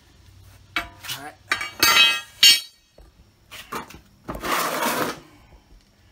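Steel pry bar clanking and ringing against a stuck rear brake rotor and hub as it is levered to force the tight rotor off. A few sharp metallic clanks with ringing come about two seconds in, then a longer scraping rasp.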